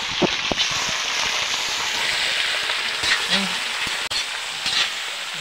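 Meat frying and sizzling in a hot wok, with a few sharp knocks and scrapes of a utensil as it is stirred.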